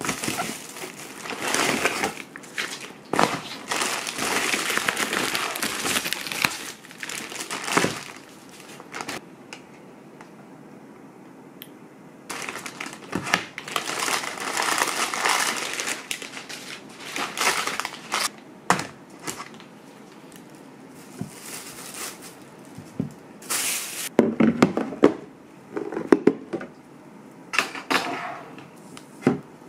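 Crinkling and rustling of an insulated foil food-delivery bag and a plastic bag being opened and unpacked, in long stretches during the first half. Near the end come several sharp knocks of things being set down on a wooden table.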